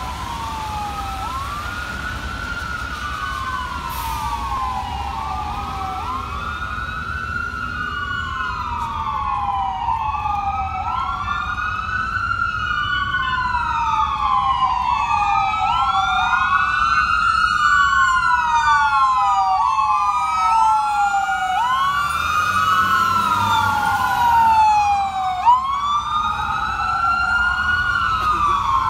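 Several emergency sirens from a fire engine and ambulances responding together, wailing at once. The slow rising and falling sweeps repeat every few seconds, out of step with each other, and grow steadily louder as the vehicles approach, over a low rumble of traffic.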